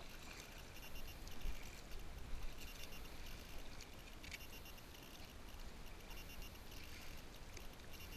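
Sea water lapping and splashing against a kayak hull as it moves through choppy water, with a few brief splashes and a low rumble underneath.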